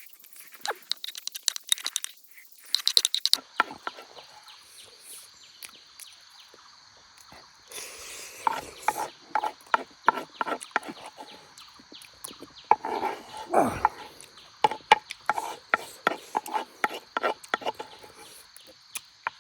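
A steady high chirring of insects, with many irregular sharp clicks and taps over it, densest in the first three seconds.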